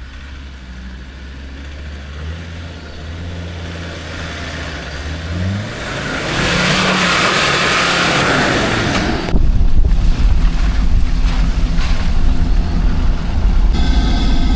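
4WD engine revving hard as it launches up a slippery clay off-road track, its pitch climbing in steps. About six seconds in, a loud rushing hiss takes over for a few seconds, then a heavy, loud low rumble.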